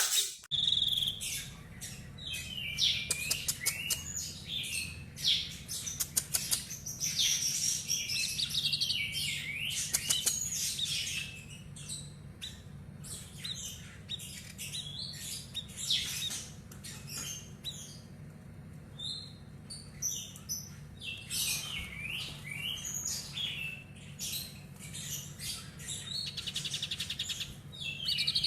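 A tepus dada putih ('kopi-kopi sniper') songbird singing a busy, rapid song of chirps, quick repeated notes and short trills, with brief lulls partway through. A steady low hum sits underneath.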